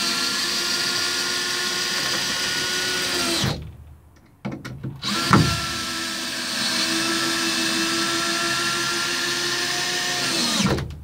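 Cordless drill driving long wood screws into a timber brace. The motor runs steadily for about three and a half seconds and stops, a few clicks follow, then it spins up again and runs for about five more seconds before winding down near the end.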